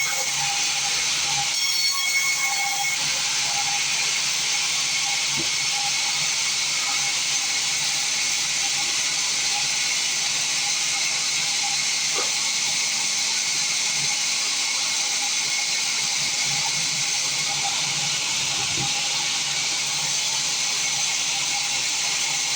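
Sawmill bandsaw running with a steady, even hiss, with a faint whine over it in the first few seconds.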